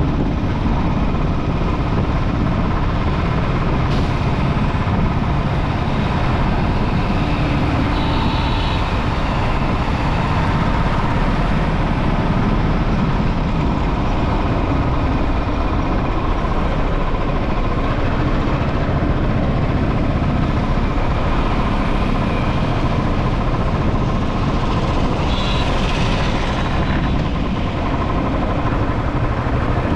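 Steady road and wind noise of a motorcycle ride through city traffic, with the engines of surrounding traffic running throughout. Two short higher-pitched sounds stand out briefly over it.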